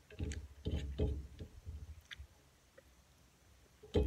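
Soft knocks and handling sounds of eating at a glass-topped table, plate and fork shifting as food is picked up by hand. They come in two short clusters: several in the first second and a half, then more near the end.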